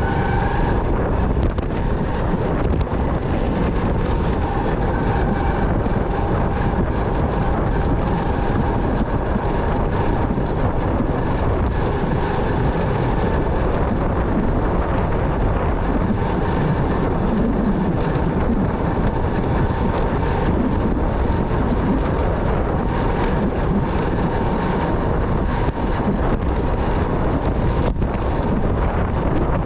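Motorcycle on the move: steady engine and road noise with wind buffeting the microphone.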